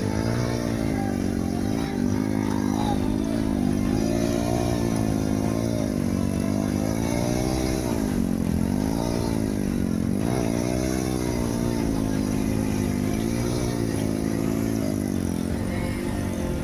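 Single-cylinder motorcycle engine revved up and down again and again under load as the bike is worked out of mud and standing water.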